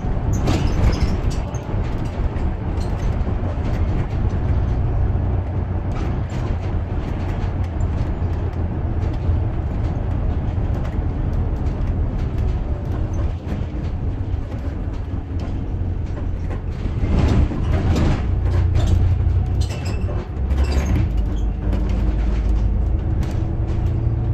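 Bus engine and road noise heard inside the moving bus: a steady low rumble. Near the end the engine tone shifts in pitch, and a burst of rattling comes about two-thirds of the way through.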